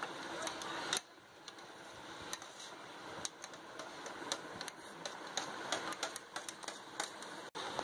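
Metal knife scraping and tapping against a plastic tray as jelly cubes are pushed off it: a run of sharp, irregular clicks.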